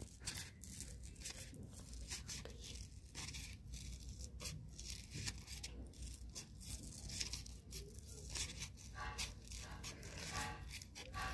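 Scissors cutting around a circle of glitter sparkle sheet: a run of small, irregular snips and crackles as the blades bite through the sheet and it rustles in the hand.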